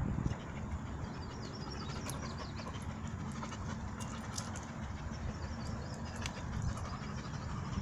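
A pit bull and a puppy play-wrestling on wood chips: soft scuffling and many small clicks over a steady low rumble.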